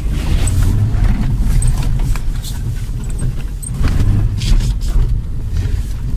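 Interior sound of a Honda 4x4 driving slowly on a snow-covered road: a steady low rumble of engine and tyres, with a few short clicks and knocks.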